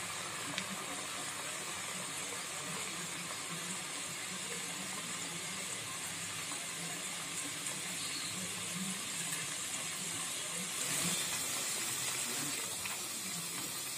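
Uzhunnu vadas (black gram fritters) deep-frying in a pan of hot oil: a steady sizzle and bubbling hiss, a little louder around eleven seconds in.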